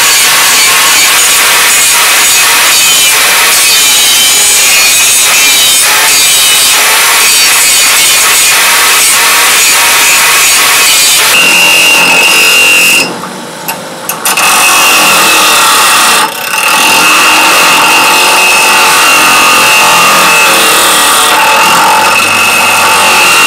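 Angle grinder with a sanding disc running against a steel knife blade, giving a steady grinding rasp. About halfway through it gives way to a bench grinder's wheel grinding the blade, with a steady high whine over the grinding. The grinding sound drops out briefly twice soon after the change.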